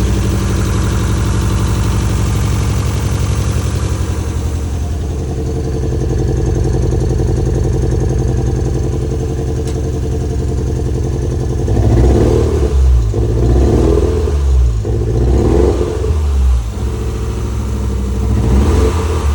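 Toyota MR2 engine idling, then blipped several times in quick succession past the middle and once more near the end. It is misfiring and not running right even with new ignition leads.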